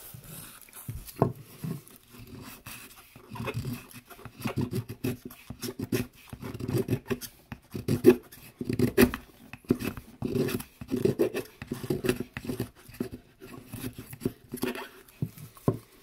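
SOG Flashback Mini folding knife's blade whittling a stick of wood: a steady run of quick, irregular scraping strokes as it shaves and digs into the wood, with small sharp clicks between them.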